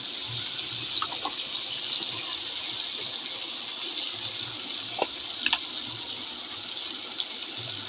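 Chickpeas and spice paste sizzling steadily in oil in a karahi as they are fried down, with a few light clicks of the spoon against the pan.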